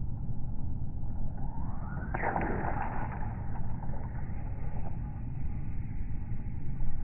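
Wind buffeting the microphone with a steady low rumble. About two seconds in, the surf-casting rod is cast: a rising whoosh that ends sharply, then a fading hiss as the line runs out.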